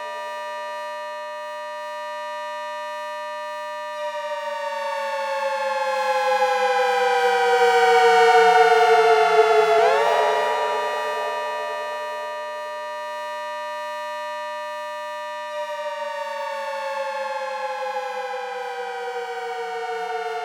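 Synthesized ACA Hurricane 130 civil-defense siren built from sawtooth waves, sounding its attack wail. A multi-tone chord holds steady, then glides slowly down over about six seconds, winds up again quickly about ten seconds in, holds, and slowly falls once more.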